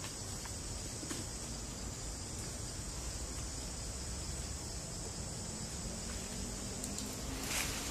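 Steady high-pitched insect chorus over a low outdoor rumble, with a few faint clicks and a brief rustle near the end.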